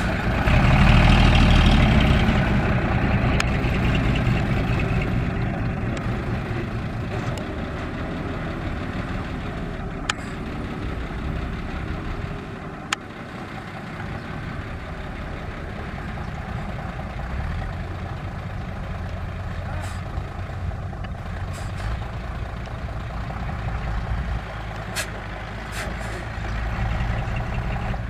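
Diesel dump truck engine running under load while its hydraulic hoist raises the tipper bed to dump a load of dirt. It is loudest in the first few seconds, then settles to a steady run, with a few short clicks.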